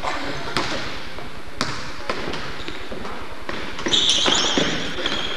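A basketball being dribbled and passed on a hardwood gym floor: a string of separate bounces. From about four seconds in, high squeaking, typical of basketball shoes on the floor, rises above it.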